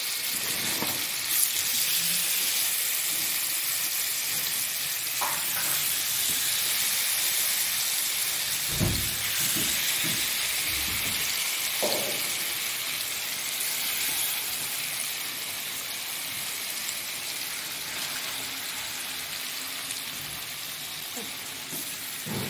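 Marinated chicken pieces sizzling as they fry in hot oil and ghee in a frying pan, a steady hiss that eases slightly in the second half. A few soft knocks about nine and twelve seconds in, as more pieces go into the pan.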